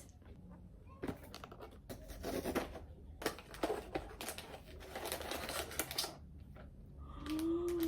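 Blind-box packaging being handled and opened by hand: irregular clicks, scratches and crinkling rustles.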